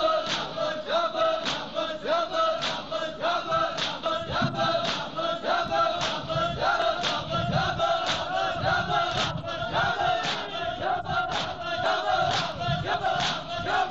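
A crowd of men chanting a nauha (Shia mourning elegy) in unison, with the sharp slaps of open palms striking bare chests (matam) keeping a steady beat of a little under two a second.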